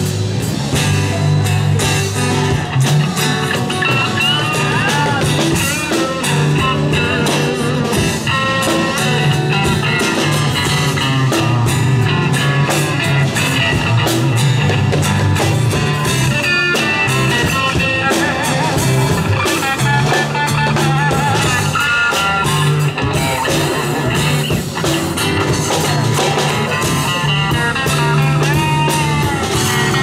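Live band jamming an improvised rock-blues groove: bass guitar holding long low notes over a drum kit, with a lead line bending in pitch above them.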